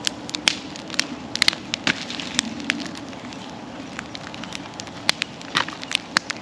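Wood bonfire crackling: sharp, irregular pops and snaps from the burning logs over a steady rush of flame.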